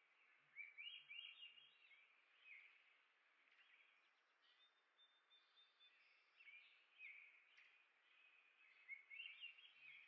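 Faint chirping and twittering of small songbirds in short clusters of quick notes. The busiest bursts come about half a second in and again near the end, with a brief held high note in the middle.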